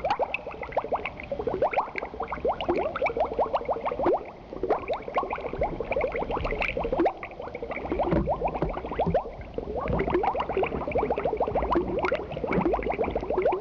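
Water gurgling and splashing close by: a dense, bubbling patter of quick blips over a low rush, dipping briefly twice.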